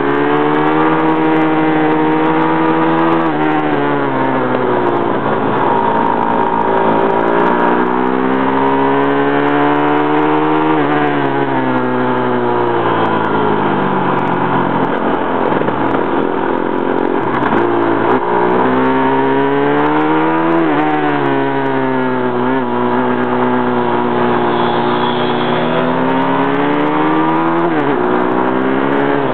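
Pit bike engines running hard on track, heard close from a camera mounted on the bike. The pitch climbs steadily as the bikes accelerate and drops sharply several times as they slow for corners.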